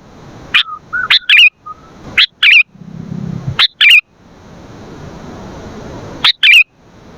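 Sooty-headed bulbul (kutilang) calling in loud, sharp bursts of short chattering notes, about five bursts, with a pause of some two seconds before the last.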